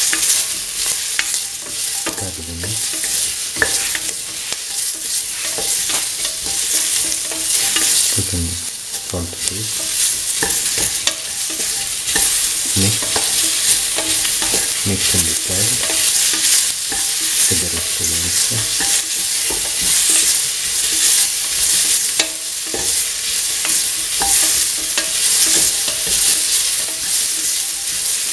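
Chopped onion, bell pepper and tomato sizzling in hot oil in a metal pan while a spatula stirs them, with frequent scraping clicks against the metal and a few low knocks. The frying hiss is steady.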